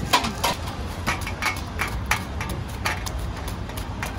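Knife cutting fruit: a run of quick, irregular clicks and taps, several a second, over a steady low background hum.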